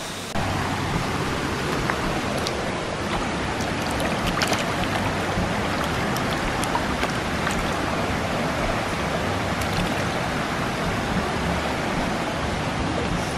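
River water rushing over rocks: a steady hiss of flowing water, with scattered small clicks.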